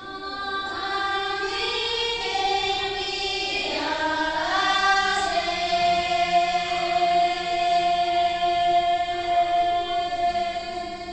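A group of women singing a Sherpa Shyabru dance song together, unaccompanied. The voices glide between notes at first, then hold one long note through the second half and fade near the end.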